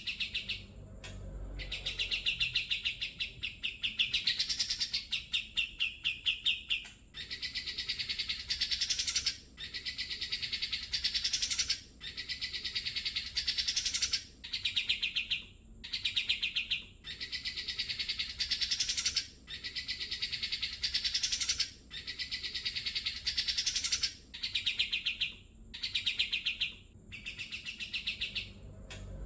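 Grey-cheeked bulbul (cucak jenggot) singing: a rapid, buzzy trill in phrases of about two seconds, repeated one after another with short breaks, many of them rising in pitch at the end.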